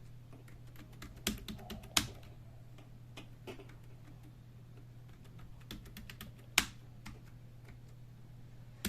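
Dell KB216 membrane keyboard being typed slowly and unevenly, single key presses with gaps between them and a few sharper, louder strikes, over a faint steady low hum.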